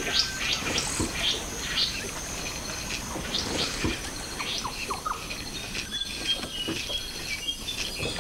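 Natural ambience of insects buzzing steadily, high-pitched, with many short bird chirps and a few brief whistled notes scattered throughout.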